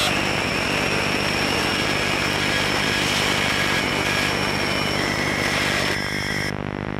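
Electronic noise music: a dense, steady engine-like drone with a high whistling tone on top and a low bass hum underneath. About six and a half seconds in, the high part cuts off suddenly, leaving a lower synth drone.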